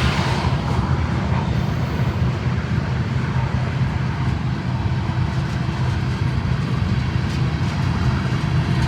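Freight train diesel locomotives running, a steady low rumble.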